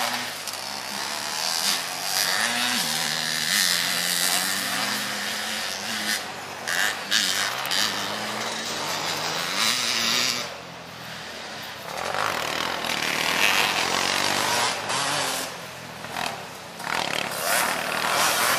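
Racing three-wheeler ATC engines revving hard on a dirt motocross track, the revs rising and falling as the trikes accelerate, shift and pass, dropping back briefly about two thirds of the way through.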